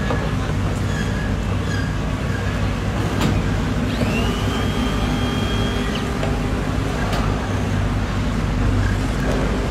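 Steady low hum of a running engine. A few sharp knocks sound over it, and a high thin tone is held for about two seconds midway.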